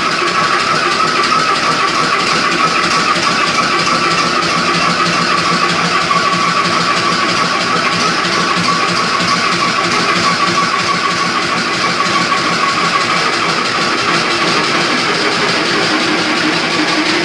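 Crossley OE1 stationary oil engine running steadily.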